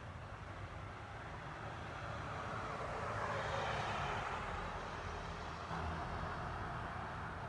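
A vehicle passing by, its noise swelling to a peak about halfway through and then fading.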